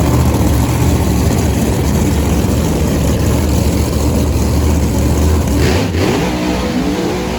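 Drag racing car engine at full throttle, a loud, dense low rumble that starts abruptly and holds steady. About six seconds in it changes to a rising, more tonal engine sound.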